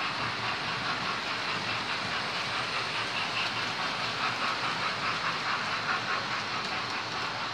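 Model railway trains running round the layout: a steady, dense rattle of small wheels on the track with no let-up.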